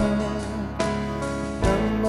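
Male vocalist singing a slow worship song in Tetum over instrumental accompaniment, holding long sustained notes.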